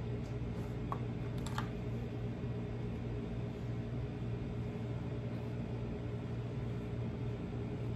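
Steady low mechanical hum, with a few faint light clicks in the first couple of seconds.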